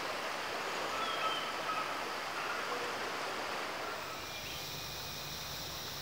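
Stream water flowing steadily, with a few faint short bird whistles.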